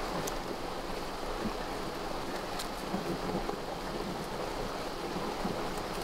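Steady rushing water noise, with a few faint ticks and rustles as the layers of a banana stem are peeled by hand.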